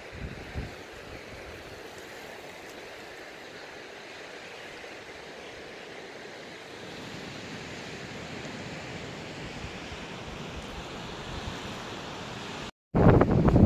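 Small waves lapping and washing over a pebbly, rocky shoreline, a steady soft wash of water. Near the end the sound drops out for an instant and a much louder rush of noise takes over.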